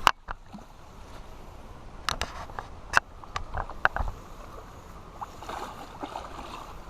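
Scattered sharp clicks and knocks: one loud at the very start, then a cluster about two to four seconds in, over a steady background of water noise.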